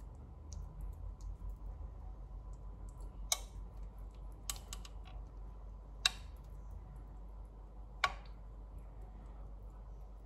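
Three sharp clicks a few seconds apart, with a few fainter ticks between them, over a low steady rumble.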